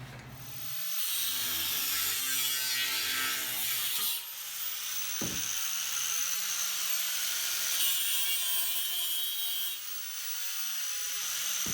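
A saw cutting through 3x3 steel square tubing: a steady, high-pitched grinding noise that briefly drops about four seconds in, then carries on with a steady high ring.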